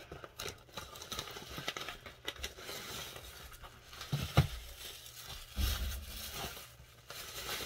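A metallic foil mailer bag being opened and white tissue packing paper pulled out of it: irregular crinkling and rustling of plastic and paper, with a sharp knock about four seconds in.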